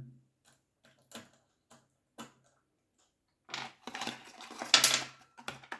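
Metal parts of a watch caseback opener clicking a few times, then clattering and scraping for about two seconds as the tool is adjusted by hand.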